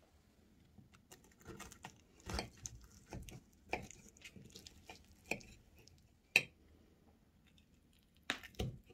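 Knife and fork cutting through a piece of baklava on a porcelain plate: irregular crackling of the flaky pastry layers, still crisp with the syrup not fully soaked in, mixed with clinks of metal on the plate, the sharpest about six and a half seconds in.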